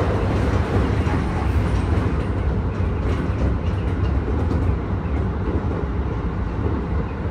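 Keisei 3000-series electric train running, heard from inside the passenger car: a steady low rumble of wheels and running gear on the rails, easing slightly about five seconds in.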